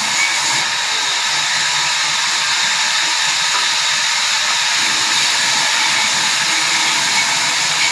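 Large sawmill saw running, a loud, steady noise strongest in the upper range with no breaks.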